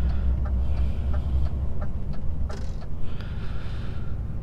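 Cab noise of a DAF XF truck under way: a steady low engine drone and road noise heard from inside the cab, heavier for the first second and a half, then easing. Faint regular ticks run through it about three times a second.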